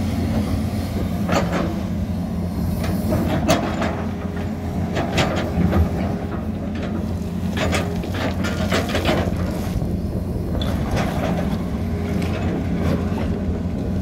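Tata Hitachi Zaxis 220 excavator's diesel engine running steadily under load, with irregular clanks and scrapes as the steel bucket digs into rocky soil.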